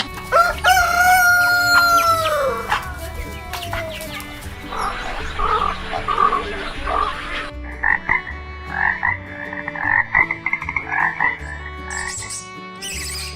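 A rooster crowing once in a long call that drops in pitch at its end, followed by a frog croaking, first in a few rough croaks and then in a rapid pulsed run.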